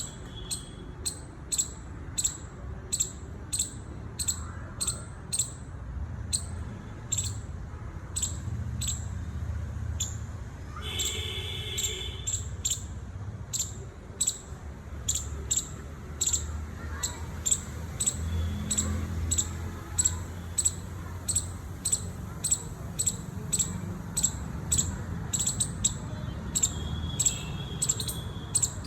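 A squirrel calling in a long, even run of short, sharp, high chirps, about three a second. About eleven seconds in, one longer, lower call lasts about a second.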